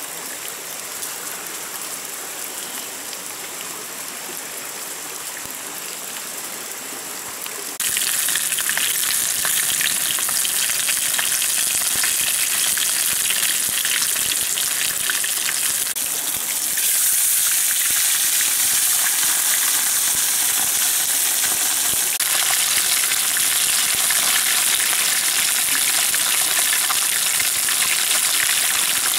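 Whole fish frying in hot oil in a pan: a steady, dense sizzle that starts abruptly about eight seconds in and grows louder again partway through. Before it, a quieter steady outdoor hiss.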